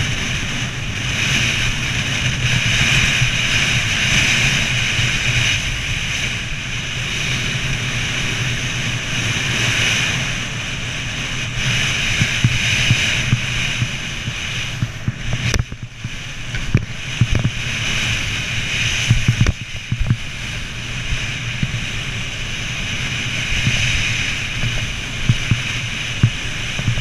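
Skis sliding and carving over packed snow, a continuous hissing scrape that swells and fades every few seconds, mixed with wind rumbling on the microphone.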